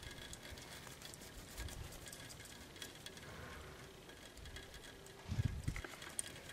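Faint, irregular crunching footsteps in snow, with a short low rumble of wind or handling on the microphone about five seconds in.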